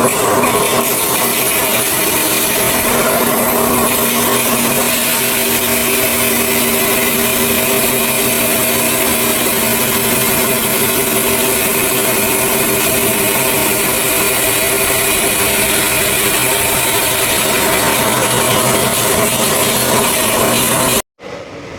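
Granite-processing machinery running steadily: a constant loud hiss with several steady humming tones underneath, cut off suddenly near the end.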